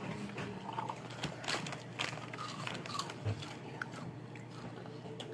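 Someone biting and chewing crunchy Hot Cheetos, with irregular crunches and mouth clicks.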